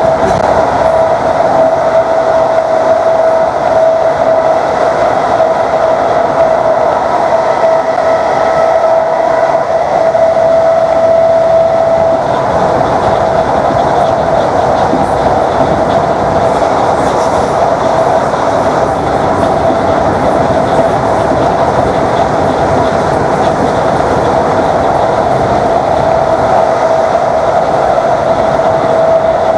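Class 321 electric multiple unit running at speed, heard from on board: a steady tone from the traction motors over loud rail and running noise. The tone fades about twelve seconds in and comes back near the end.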